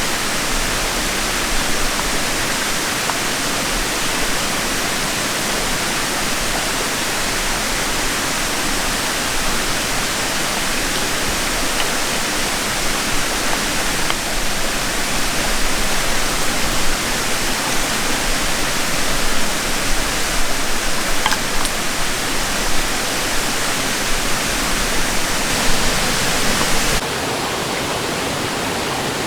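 A small stream flowing over rocks, a steady rushing of water, a little quieter from about 27 seconds in, with a few faint ticks near the middle.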